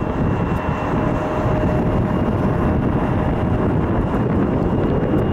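Jet engines of a Boeing 757-200 airliner on final approach to land, a steady rumble with a thin, faint whine over it, mixed with wind buffeting the microphone.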